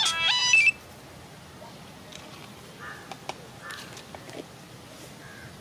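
A short musical jingle of stepping notes cuts off sharply under a second in, leaving a faint open-air background with a few brief bird calls and small clicks.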